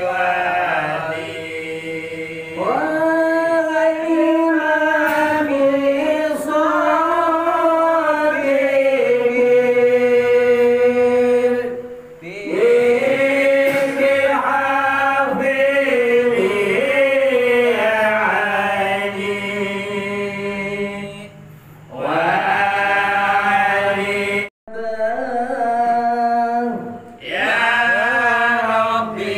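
A man chanting Islamic devotional verses for a Maulid gathering into a microphone, heard through the mosque's TOA amplifier with an echo effect added. The chant goes in long, drawn-out, wavering phrases with short breaks between them, and cuts out completely for a moment about two-thirds of the way through.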